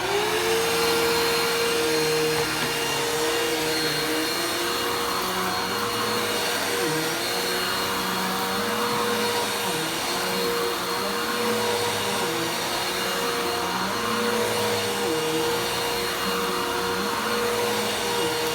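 Vacuum cleaner switched on, its motor spinning up within a moment to a steady whine that runs on, with a lower hum wavering up and down in pitch.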